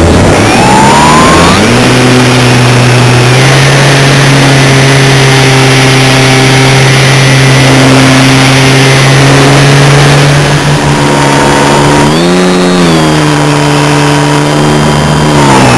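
Engine of an RC model biplane running loud and close from on board the airframe. Its pitch climbs over the first two seconds, holds steady, rises and falls briefly about twelve seconds in, and shifts again near the end.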